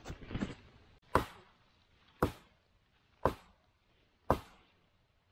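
Four sharp knocks, evenly spaced about a second apart, each with a short ringing tail, like blows from a hand tool.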